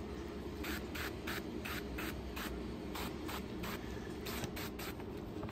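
Aerosol can of duck fat cooking spray hissing in many short bursts, about two or three a second, as it lays a light coat on a whole chicken.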